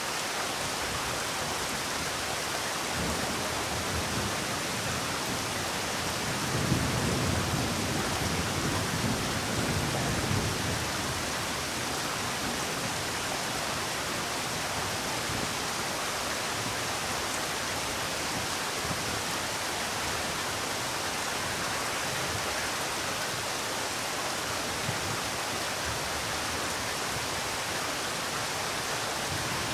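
Steady rain falling, an even hiss with no let-up. About seven seconds in, a low rumble swells for a few seconds and fades again.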